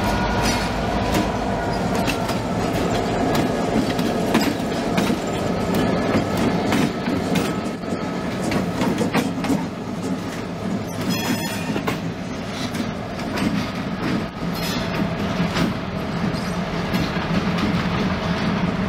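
Diesel locomotive engine running steadily as it rolls past close by, with wheels clicking over the rails throughout. A brief high metallic squeal sounds a little past halfway.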